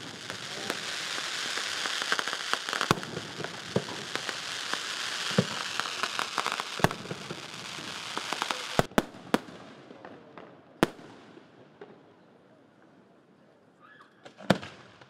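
Aerial fireworks display: dense crackling from bursting shells and stars, punctuated by sharp bangs. The crackle dies away after about nine seconds, leaving a few separate loud reports near the end.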